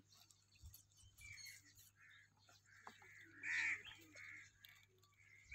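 Faint bird calls: a few short calls, the clearest a little past halfway, over a low steady hum.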